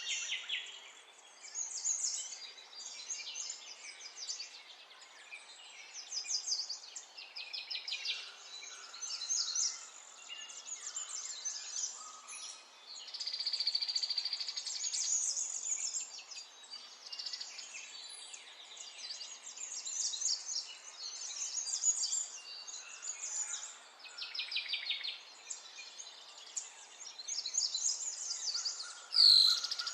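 Birds singing and chirping, with many quick repeated trills and a louder falling whistle near the end.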